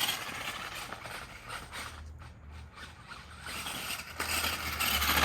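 Radio-controlled monster truck running with a whirring electric motor and drivetrain and tyres working through mud. It gets louder near the end as the truck speeds up.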